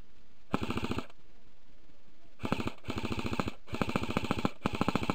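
Airsoft rifle firing on full auto: a short burst about half a second in, then three longer rapid bursts in quick succession near the end, each a fast even rattle of shots.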